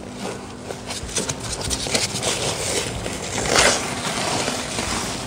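Waterlogged, rotted floor insulation in a Porsche 928's passenger footwell being ripped and scraped off the floor pan by gloved hands: rough tearing, crinkling and scraping, loudest in one burst about three and a half seconds in.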